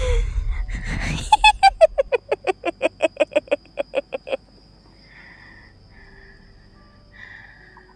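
A woman's loud, rough breathy sound, then a high cackling laugh: a rapid run of about five or six short 'ha' pulses a second for about three seconds, cut off at once and followed by only faint sounds. It is the eerie cackle of someone acting as though possessed.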